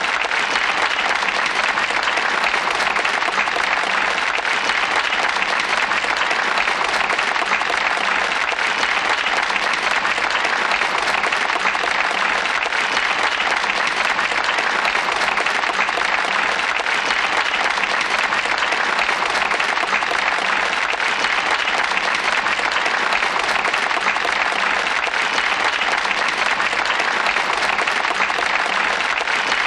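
Crowd applauding: continuous, dense clapping at an even level with no breaks.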